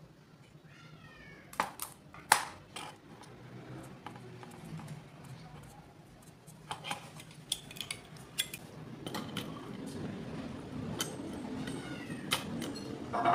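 Opened LED bulb being handled: scattered sharp clicks and taps of its plastic housing and metal-backed LED board, the loudest about two seconds in.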